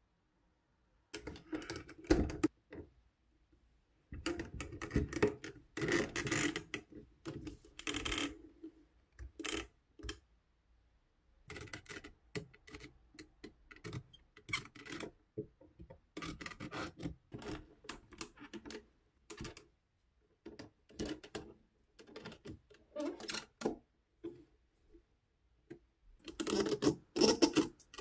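Hands handling a ball-jointed doll and its packaging: irregular bursts of clicks, taps and rustles with short pauses between them.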